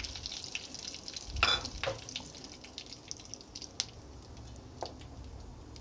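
Mustard seeds, cumin and curry leaves crackling in hot oil in a steel pot while a spatula stirs them: the sizzle of a spice tempering (tadka), with a few louder strokes about a second and a half in.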